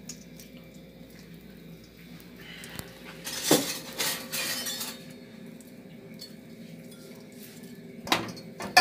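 Kitchenware being handled: a couple of knocks and clinks about three and a half seconds in and again near the end, as a wooden cutting board of sliced onion is picked up beside the pan, over a faint steady hum.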